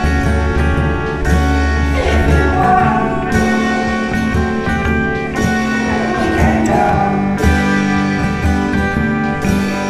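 Improvised band music: guitar over sustained low notes, with a sharp hit about every two seconds.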